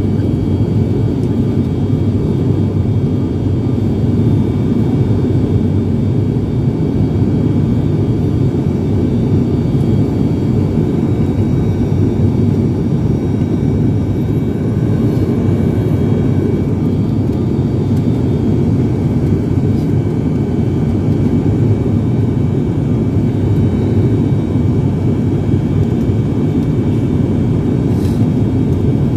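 ATR turboprop airliner's engines and propellers heard from inside the cabin: a steady, loud drone with a few thin, steady high tones above it.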